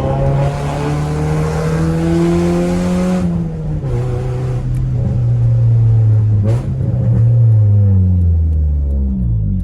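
Honda Civic EJ6's four-cylinder engine under way: the revs climb for about three seconds with a rising hiss, drop sharply, hold steady, and then fall away near the end. There is a short click about six and a half seconds in.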